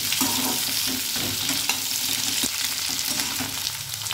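Cut okra sizzling steadily as it fries in hot mustard oil in a kadhai, with a few light clicks of stirring against the pan.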